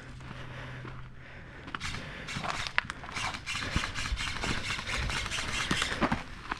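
Rustling and footsteps of a player moving through brush, starting about two seconds in, with scattered sharp irregular clicks.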